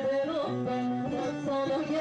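Live Turkish folk music: a bağlama (saz) playing a melody, with a woman singing over it.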